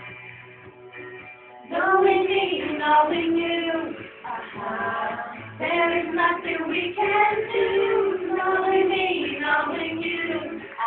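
A young female voice singing a song, loud from about two seconds in, after a quieter stretch of held instrumental notes.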